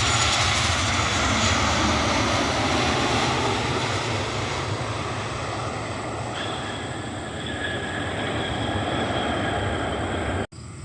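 Boeing 737-800 airliner's CFM56 jet engines passing close on landing approach, a loud rushing roar with a whine that falls in pitch as it goes by. The sound cuts off abruptly just before the end.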